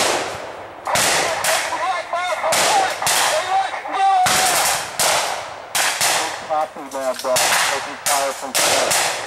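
Blank gunfire in a reenacted firefight: a string of sharp shots at irregular spacing, some in quick runs, with men's voices shouting between them.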